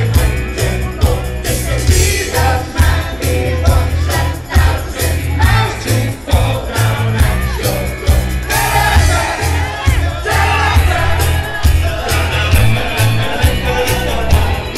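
Loud amplified Christmas pop song over a sound system, with a steady drum beat and heavy bass, and a crowd singing along.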